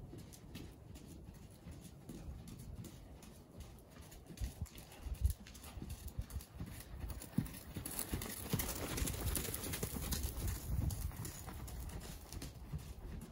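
Hoofbeats of a ridden horse on soft sand arena footing, dull and muffled thuds in an uneven rhythm, with a stretch of rushing hiss through the middle.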